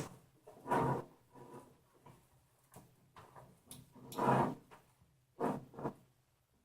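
Hands handling a 3D printer's frame parts and wiring: a string of short scrapes and knocks, the loudest about four seconds in.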